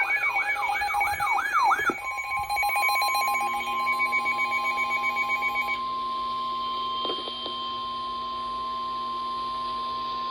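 Electronic weather-alert tones: first a warbling alarm tone sweeping up and down about two and a half times a second. Then, from about two seconds in, a steady single-pitch tone just above 1 kHz, the NOAA Weather Radio 1050 Hz warning alarm that signals a broadcast warning is about to follow. A pulsing layer of other tones runs beneath it until about halfway through.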